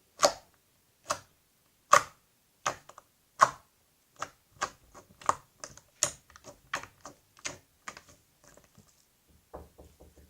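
Clear slime (Jurassic World Putty) being poked with fingers, each poke a sharp pop. The pops come about one a second at first, then quicker and softer, with a few faint ones near the end.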